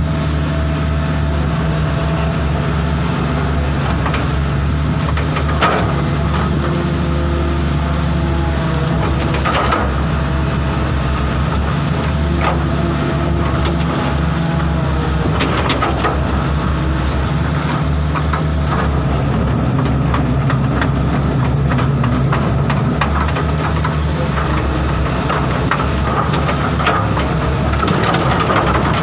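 Sumitomo 280FJ1 excavator's diesel engine running steadily, its note shifting a little now and then, with a few sharp knocks.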